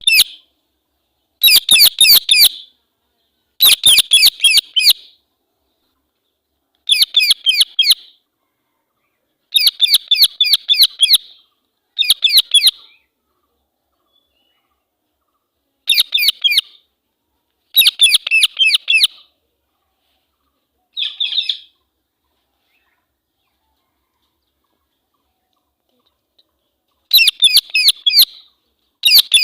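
A female Indian ringneck parakeet gives harsh, shrill screeching calls in quick runs of sharp notes. Each bout lasts about a second, with a second or more of silence between bouts and one longer pause of about five seconds in the second half. These are the agitated calls the title calls an angry voice.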